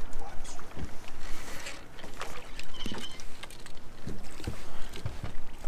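Choppy water lapping against the hull of a small fishing boat, with scattered knocks and clicks throughout.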